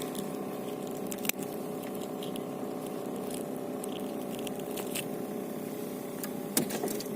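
A steady motor drone, with a few sharp clicks and taps, the loudest about a second in and near the end.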